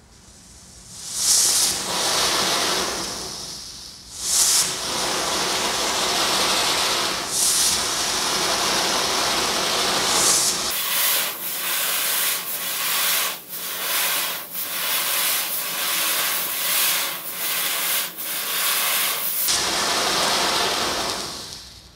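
A 13-shot fountain firework (Katsuragi Enka '13-shot flame cannon') burning with a loud, continuous hiss of spraying sparks. The hiss surges every few seconds in the first half and is broken by many short spurts in the second half, then fades out near the end.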